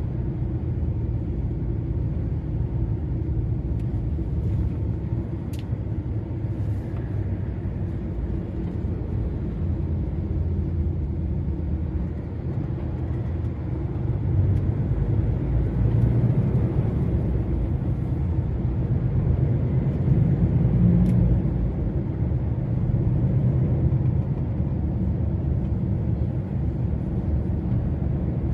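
DAF XF 480 truck driving on the motorway: a steady low drone of engine and road rumble that gets a little louder about halfway through, with a couple of faint clicks.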